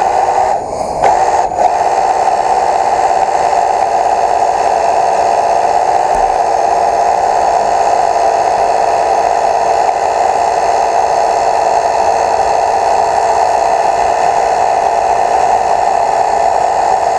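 A small motor running steadily with a constant whine, dipping in speed briefly about a second in and picking up again.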